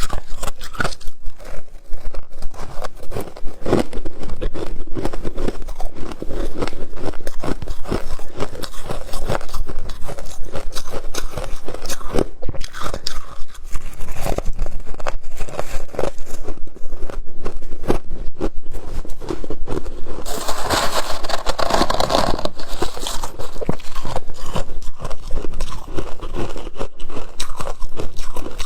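Close-miked biting and chewing of crunchy freezer frost: a dense, irregular run of crisp crunches, with a louder, hissier stretch about three-quarters of the way through.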